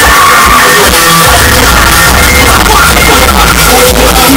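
Very loud music with a singing voice, played through a pickup truck's car sound system. A heavy bass line comes in about a second in.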